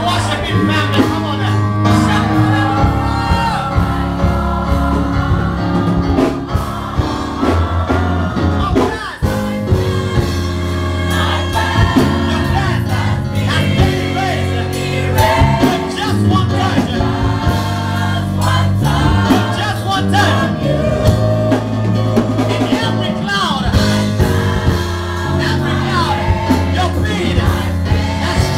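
Gospel choir singing a worship song into handheld microphones, with held low bass notes underneath that shift from chord to chord.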